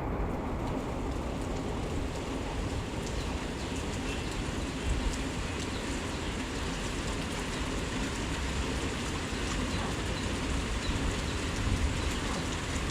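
Heavy rain falling steadily, with the sharp patter of individual drops over a deep rumble.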